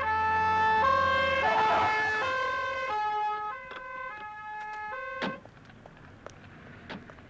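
Two-tone emergency-vehicle siren, switching between a high and a low note about twice a second. It is loud at first, fades, and cuts off abruptly with a knock a little over five seconds in, followed by a few faint clicks.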